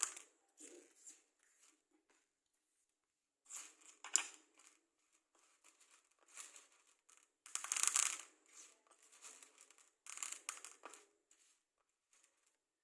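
Matchsticks being handled, rattling and scraping against one another in about five short bursts of clicking, each around a second long, with quiet gaps between.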